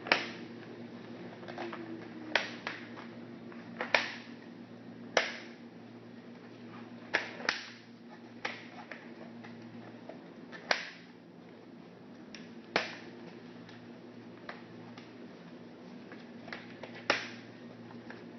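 Plastic clips of a Nissan Versa hubcap's retaining ring snapping into place one after another: a series of sharp clicks at irregular intervals, over a faint steady hum.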